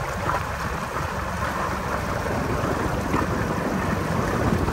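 Flats boat running across open water under outboard power: a steady mix of engine, rushing water and wind noise with no clear engine pitch.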